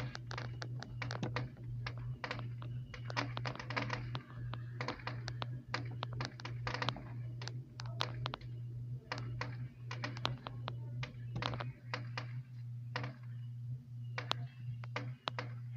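Fireworks crackling: a dense, irregular string of sharp pops and clicks, several a second, over a steady low hum.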